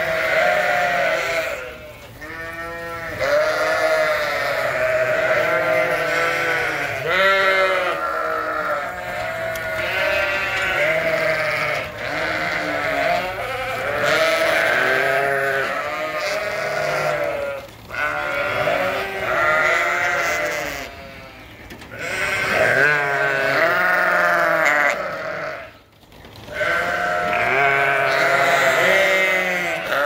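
A flock of sheep bleating over one another, many overlapping wavering baas, with a few brief lulls.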